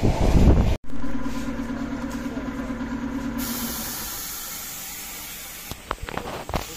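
A passing train's loud rumble, cut off abruptly under a second in. Then a steady hum with a low drone that stops about three seconds later, the sound slowly fading, with a few sharp clicks near the end.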